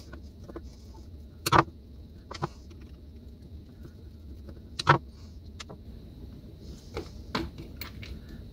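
Scattered sharp metal clicks and taps as a screwdriver works the side-plate screws out of a Great Lakes Holiday "98" spincast fishing reel and the plate is handled, about seven in all, the loudest about one and a half and five seconds in.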